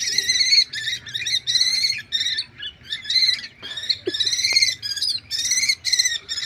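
Common kestrel calling repeatedly: a fast run of short, shrill calls, about two a second.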